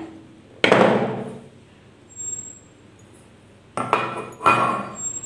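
A stainless steel bowl knocks against a wooden pastry board and rings briefly, about half a second in. Two more metallic knocks with short rings follow near the end.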